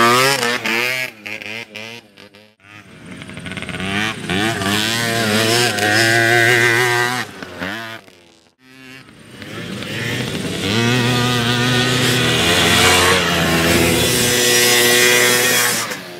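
Youth racing quads (ATVs) revving hard as they pass over a dirt course, their engine pitch rising and falling as the riders work the throttle. One quad is loud close by at the start and fades within about two seconds. Two more swells of engine noise build and die away, the last fading near the end.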